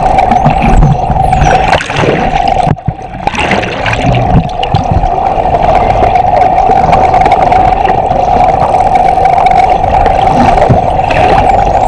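Underwater recording of a boat engine's steady drone, briefly dropping out about three seconds in. Over it, a few faint high, gliding whistles of bottlenose dolphins come near the start and again near the end.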